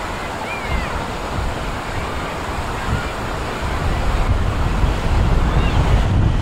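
Wind buffeting the microphone: a gusty, low rumbling noise that grows stronger about four seconds in.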